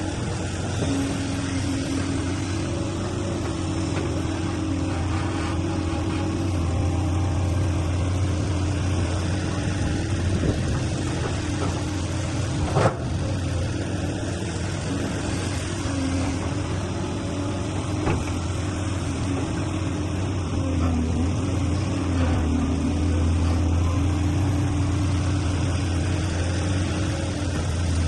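Diesel engine of a heavy machine running steadily, its note wavering a little as the load changes, with a sharp knock about 13 seconds in.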